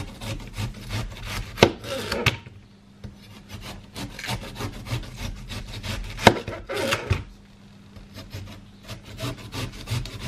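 A large chef's knife sawing through a watermelon on a cutting board: the blade scraping and crunching through rind and flesh, with a few sharp knocks, the loudest about a second and a half and about six seconds in.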